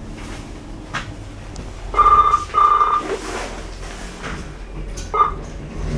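A lift's electronic signal beeping twice at one pitch, each beep about half a second long, then once more briefly near the end, over a steady low rumble.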